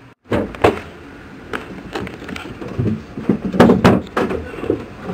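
Irregular sharp knocks and clatter, the loudest pair about three and a half seconds in, over a low rumble of movement as cable is handled in a wooden boat cabin.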